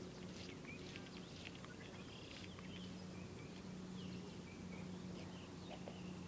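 Several birds chirping and calling faintly in quick, scattered short notes, over a low steady hum.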